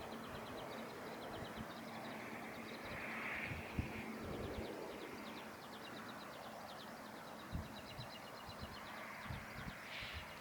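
Outdoor ambience with a rapid, evenly pulsed high chirping trill that keeps going, a faint steady hum in the first few seconds, and a few brief low thumps.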